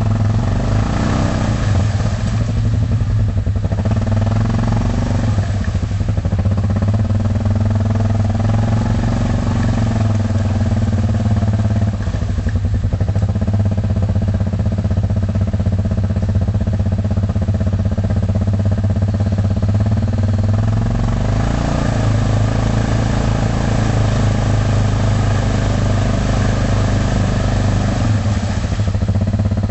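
A vehicle engine running steadily, its note dipping and rising slightly a few times.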